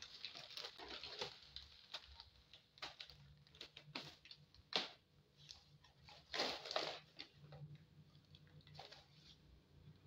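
Plastic grocery bags rustling and crinkling as items are pulled out of them, with a few light knocks of packages set down on a tiled floor.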